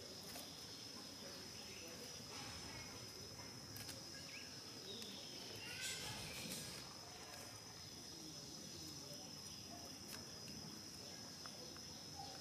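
Steady high-pitched insect trill over faint outdoor background noise, with a brief squeaky animal call about six seconds in.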